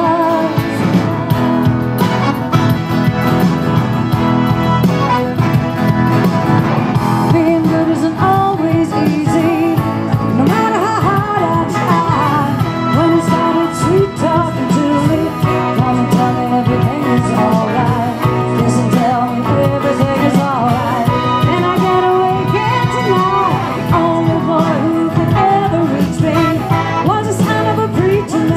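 Live band music: a woman singing over guitar and keyboard, loud and continuous.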